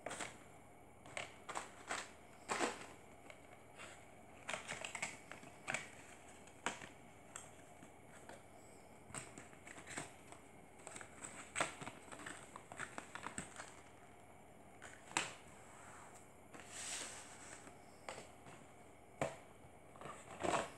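Paperboard box and plastic packaging being handled by hand: irregular light taps, clicks and small crinkles, some in quick clusters, with a longer rustle toward the end.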